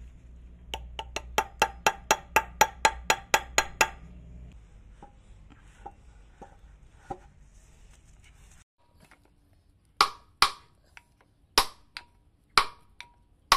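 Metal knocking on the D8 diesel engine's cover as it is fitted over the crankshaft end: a quick run of about fourteen evenly spaced knocks, about four a second, each ringing briefly. Then a few faint ticks, and from about ten seconds in a handful of louder single knocks.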